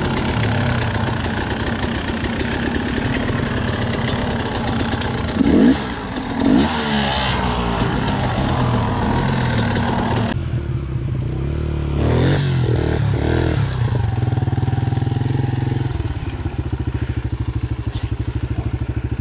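Dirt bike engine idling, with two short louder bursts about five and a half and six and a half seconds in. Near the end the idle settles into an even, pulsing beat.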